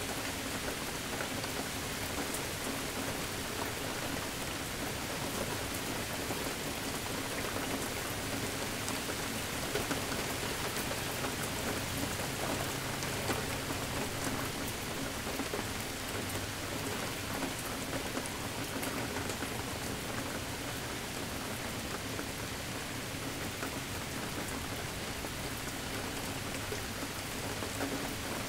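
Steady rain falling on a surface, with a dense patter of individual drops.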